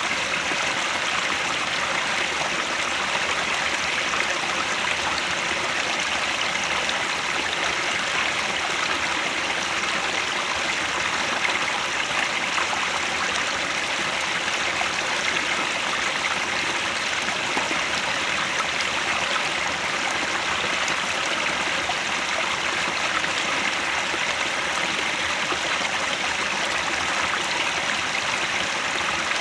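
Headwater stream flowing: a steady, unbroken rush of water, bright and even, with no change in level.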